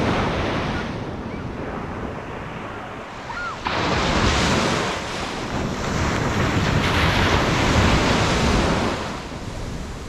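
Ocean surf on a sandy beach: a wave washes in just after the start, then a bigger one breaks at about four seconds and its foam rushes up the sand, fading near the end. Wind rumbles on the microphone throughout.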